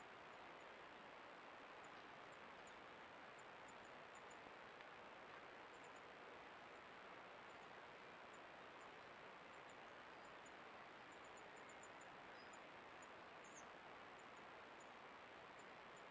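Near silence: a steady faint hiss with a constant thin high-pitched whine, the self-noise of a Browning Spec Ops Edge trail camera's microphone.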